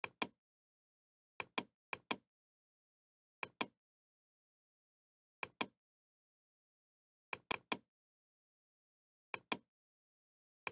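Computer mouse button clicking, each click a quick double tick of press and release. About seven clicks come unevenly, one to two seconds apart, with dead silence between.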